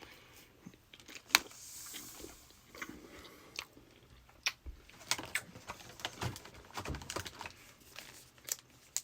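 A person chewing a Bean Boozled Fiery Five jelly bean close to the microphone: irregular soft wet clicks and small crunches, with one sharper click about a second and a half in.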